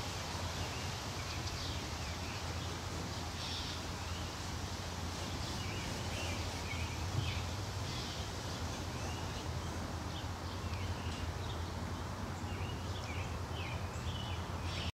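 Small birds chirping in short, scattered calls over a steady low rumble of outdoor background noise, with one brief louder thump about halfway through.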